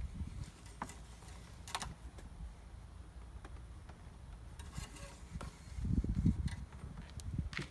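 Engine oil dipstick being handled during a level check: a few light clicks and rubbing, with a low rumble of handling noise about six seconds in.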